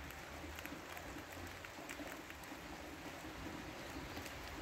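Gusty wind ahead of a thunderstorm: a steady outdoor rush with low rumbling of wind on the microphone.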